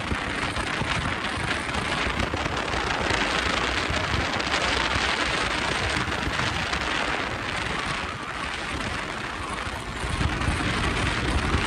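Steady wind rush over the microphone of a rider on a moving Honda SP125 motorcycle, with low engine and road rumble beneath. It eases slightly about eight seconds in and picks up again about two seconds later.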